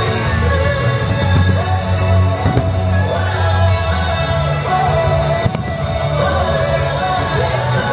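Music with a singing voice: a pop-style song carrying a wavering sung melody over a full, steady accompaniment.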